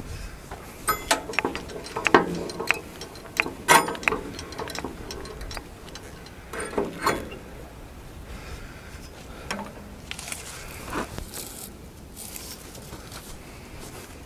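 Irregular sharp clicks and knocks of metal parts on a portable bandsaw mill being worked, with no engine running. They come thick in the first half and then thin out to a few single knocks.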